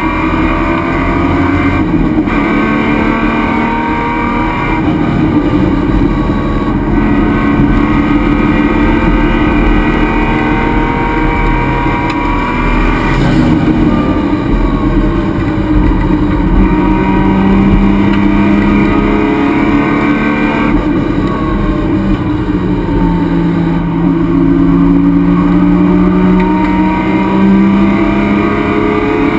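Race car's engine heard from inside the stripped, roll-caged cockpit, running loud under load on track. Its pitch climbs and falls repeatedly as it accelerates, shifts and slows, with road and wind noise beneath.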